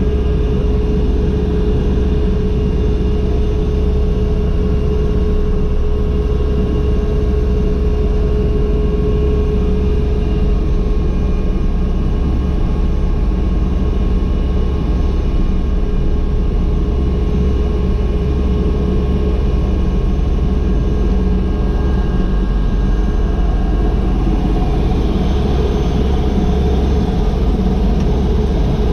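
Agusta AW119's single turboshaft engine running steadily at ground idle with the rotor turning, heard from inside the cockpit: a steady tone over a heavy low rumble.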